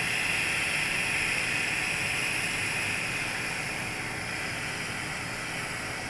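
Heat gun running with a steady hiss of blown air while it warms up, easing off slightly in the second half.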